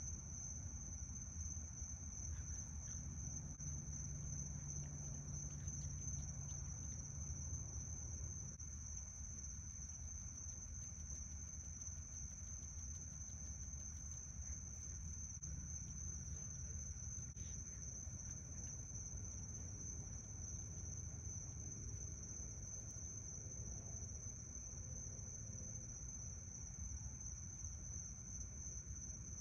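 Crickets trilling in one steady, unbroken high tone, with a low steady hum underneath.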